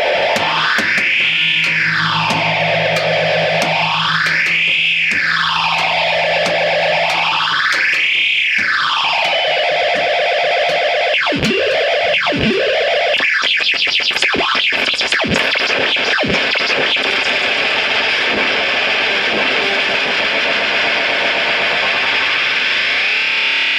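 Harsh electronic noise music: a distorted band of noise sweeping slowly up and down in pitch three times, then a stretch of crackling clicks and sharp downward swoops, settling into a steady noisy drone that rises near the end.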